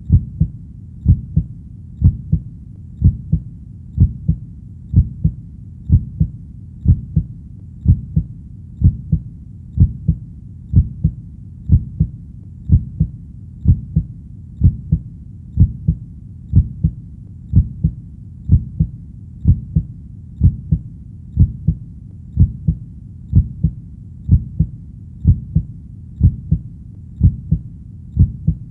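Heartbeat beating steadily at about one beat a second, each beat a pair of low thumps (lub-dub).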